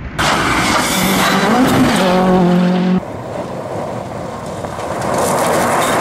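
Rally car engine revving hard, its note climbing and stepping up, then cut off abruptly about halfway through. Gravel and tyre noise follow and grow louder near the end.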